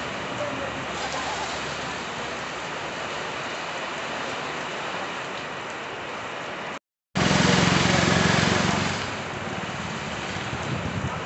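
Heavy rain falling steadily, with wind. About two-thirds through, the sound drops out completely for a moment, then comes back as a louder rush for about two seconds before settling back to the steady rain.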